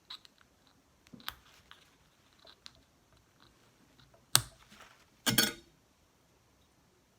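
Handling noise of small hard objects: a few light clicks, a sharp knock about four seconds in, and a short rattle about a second after it.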